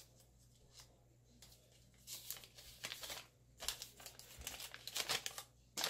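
Packaging crinkling and rustling as it is handled: a few faint ticks, then irregular crackling bursts starting about two seconds in, loudest near the end.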